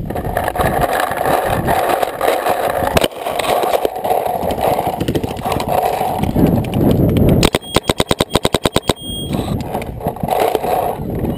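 Proto Reflex Rail electronic paintball marker firing a rapid string of about fifteen shots in under two seconds, around ten a second, starting a little past halfway, over steady background noise from the field and wind on the gun-mounted camera.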